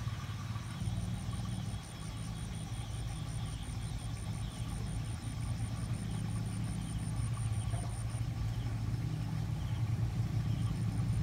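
A steady low hum of a motor running, with a fast, even, high-pitched pulsing over it that stops about eight seconds in and starts again near the end.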